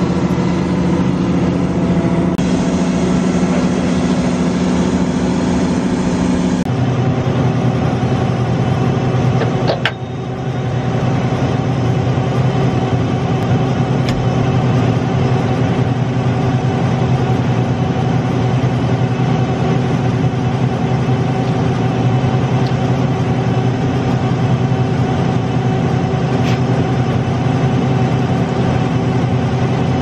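John Deere 9870 STS combine's diesel engine running steadily, its hum dropping to a lower pitch about seven seconds in, with one sharp click about ten seconds in.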